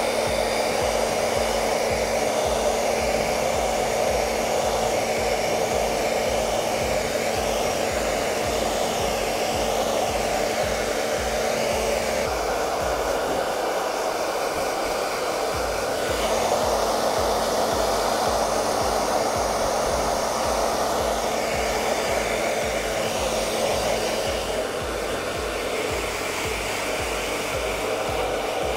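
Handheld pet blow dryer running steadily, blowing air through a puppy's coat. A steady hum within the airflow drops out for a few seconds about twelve seconds in, then returns.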